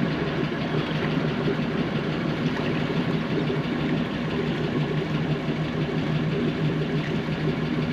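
Boat engine running steadily at a constant low speed, an even drone with no change in pitch.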